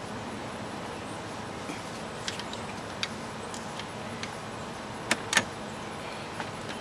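Small metallic clicks and taps of transmission cooler lines being pushed into the new radiator's quick-connect fittings, with two sharper clicks about five seconds in, over a steady background hiss.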